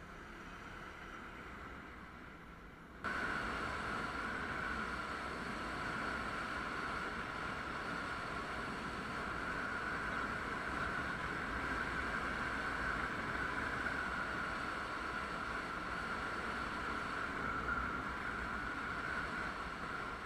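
Steady wind rush and road noise from a riding motorcycle, with no clear engine note; it jumps suddenly louder about three seconds in and then holds steady.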